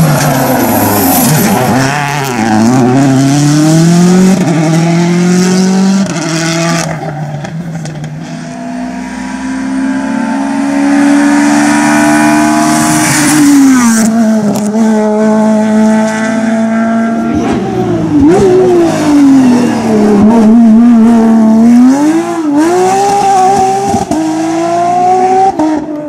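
Rally cars at full throttle on a tarmac stage, several in turn: each engine revs up through the gears, drops off sharply for the corners and pulls hard again, its pitch climbing and falling many times.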